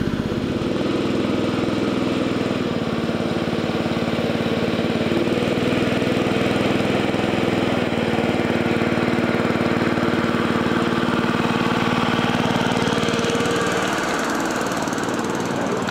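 Petrol engine of a 7¼-inch gauge hydrostatic-drive miniature locomotive running steadily under load as the line climbs, heard from the driving truck. Its sound eases off and gets a little quieter about fourteen seconds in.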